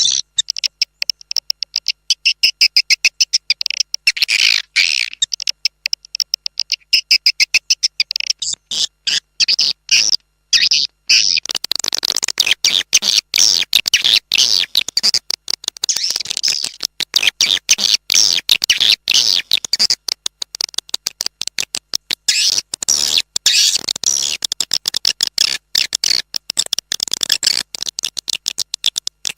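Recorded swiftlet calls: a fast, continuous chattering of short high chirps, growing denser and fuller about eleven seconds in. It is an external call sound, a lure played outside a swiftlet house to draw passing swiftlets in.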